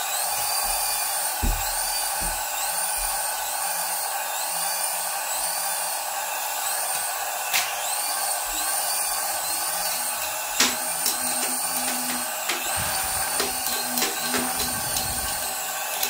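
Toy RC helicopter's small electric motors and rotors whirring with a steady high-pitched whine. It gives a few sharp knocks and some clattering in the second half as it bumps the floor and wall.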